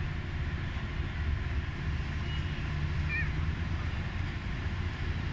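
Steady low outdoor rumble, with a couple of faint short high chirps about two and three seconds in.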